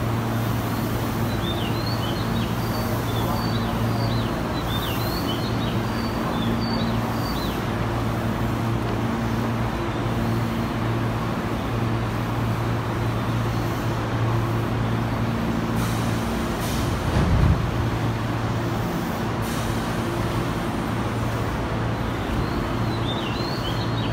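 Steady electric hum of a standing Tobu Tojo Line train's onboard equipment, with short high chirps during the first several seconds and again near the end, and a brief low surge about seventeen seconds in.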